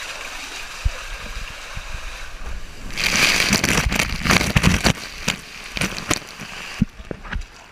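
Water rushing and splashing, loudest from about three seconds in until near the end, with scattered knocks and bumps.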